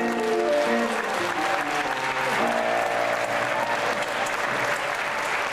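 Audience applauding at the end of a song, with the song's last held notes still sounding under the clapping in the first seconds.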